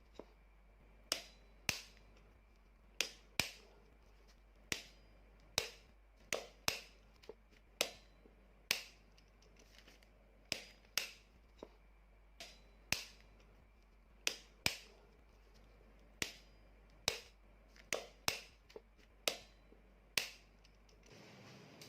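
A wrench clicking sharply while the housing bolts of a car AC compressor are torqued, about thirty single clicks at uneven spacing, roughly one or two a second, over a faint steady hum.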